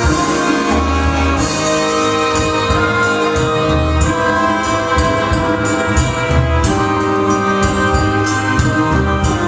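Rumba dance music playing: a slow Latin ballad with held instrumental notes, a bass line and a steady beat.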